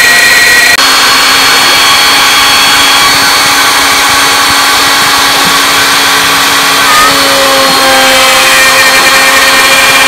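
CNC router's motor running at high speed while its quarter-inch flat bit cuts a slot in a pine board: a loud, steady whine with cutting noise. The pitch shifts suddenly about a second in and again a couple of times near the end.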